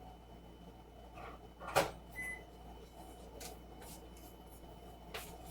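A clunk, then a single short high-pitched electronic beep from a microwave oven's keypad as it is set for two minutes, followed by a few faint taps.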